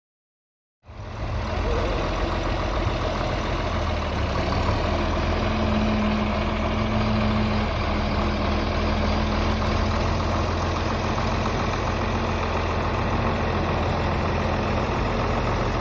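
A vehicle engine running steadily with a deep, even hum. It starts abruptly about a second in.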